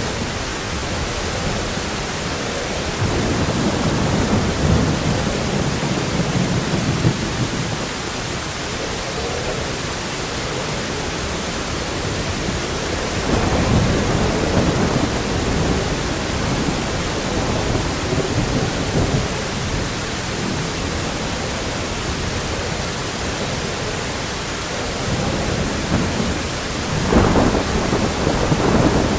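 Thunderstorm sound effect: steady heavy rain with rolling thunder that swells a few seconds in and again around the middle, and a sharper, louder thunderclap near the end.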